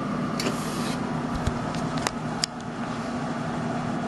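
Steady hum of the running Incoterm SPD 10/20 equipment, with a brief hiss about half a second in and a few sharp clicks around two seconds in as console buttons are pressed.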